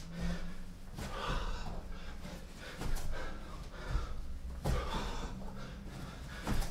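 A man breathing hard and blowing out forcefully while doing burpees. Thuds of hands and feet landing on the exercise mat come about every two seconds.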